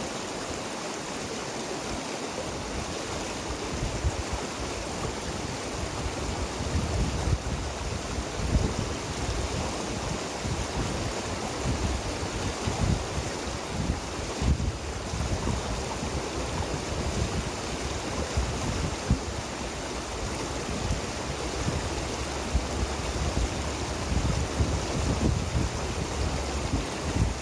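River water rushing steadily. From about four seconds in, wind buffets the microphone in irregular low rumbling gusts.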